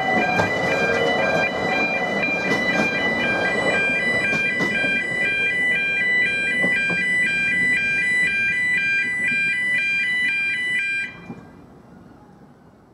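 Level crossing warning alarm sounding a rapid two-tone warble, with the rumble and clicks of the last narrow-gauge railway coaches crossing in the first few seconds. The alarm cuts off suddenly about eleven seconds in as the crossing sequence ends and the lights go out.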